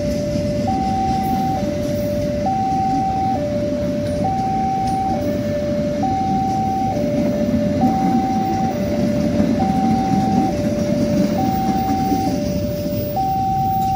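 Level-crossing warning alarm sounding a two-tone signal, switching between a higher and a lower note about once a second, over the rumble of passenger coaches rolling past on the rails. The rumble eases near the end as the last coach clears the crossing.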